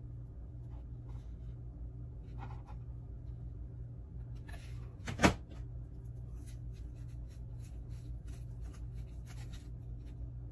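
A hot glue gun set down on the crafting mat with one sharp knock about halfway through, amid faint rustling and small clicks of hands pressing dried moss around a plastic egg. A steady low hum runs underneath.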